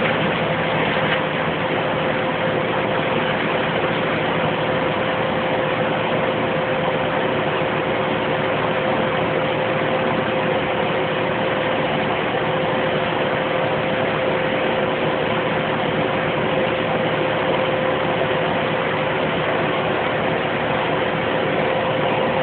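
2008 Bandit 200 XP wood chipper running steadily, a constant engine-and-machine noise with a steady hum and no change in pace.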